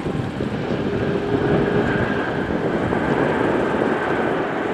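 Four-engined Airbus A340-600 jet airliner, its Rolls-Royce Trent 500 engines giving a loud, steady rumble with a faint whine through the middle.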